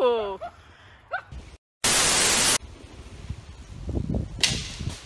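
A man's shout trails off in the first half second. About two seconds in, right after a brief dropout, a loud burst of static hiss lasts under a second at the cut between clips. After that comes a low, gusty rumble with a sharp hissy burst near the end.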